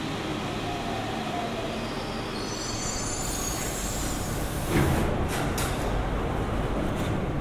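Metro train running, heard from inside the car: a steady rumble, with a high wheel squeal about two to three seconds in. Near the middle comes a sudden loud clunk, followed by a few lighter clicks.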